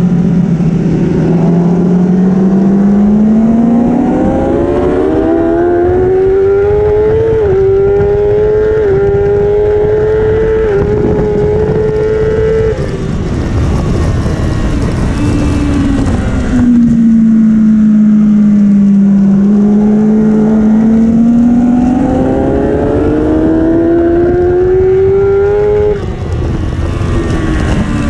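Kawasaki superbike engine heard onboard, accelerating hard out of a corner with its pitch climbing through three quick upshifts, then shutting off for braking with wind rushing past. It pulls hard again and shuts off once more near the end.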